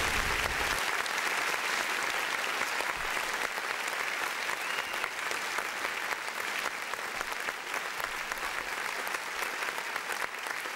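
Applause played as a sound effect: dense, steady clapping that slowly fades.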